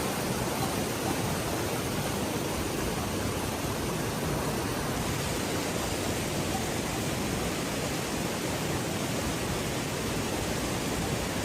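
Steady rainfall: an even, unbroken hiss.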